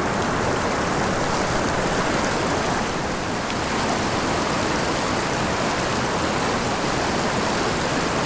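Fast, shallow river water rushing and splashing over rocks in a riffle, a steady rush.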